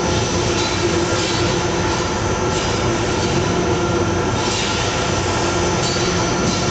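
Dog-treat extrusion line running: a loud, steady mechanical din with a constant hum.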